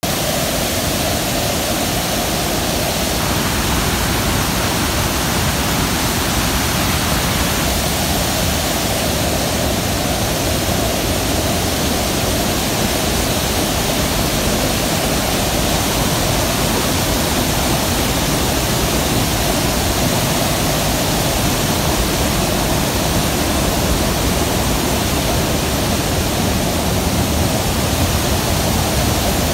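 Steady, loud rush of a river in flood pouring over a waterfall and rapids, the water high and churning.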